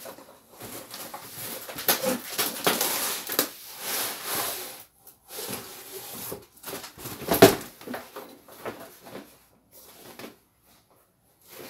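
A cardboard box being opened and a padded nylon carry bag pulled out of it: irregular rustling and scraping of cardboard and fabric, with one louder knock about seven seconds in. It goes nearly quiet for the last couple of seconds.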